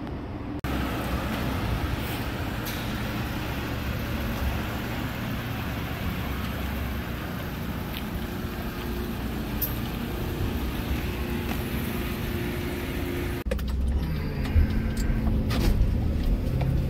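Chevrolet ambulance van's engine running as it drives out of the station bay. About 13 seconds in, it switches to a louder engine and road rumble heard from inside the cab while driving.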